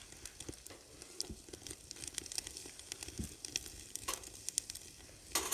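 Sausages sizzling and crackling as they cook, a dense run of small sharp crackles.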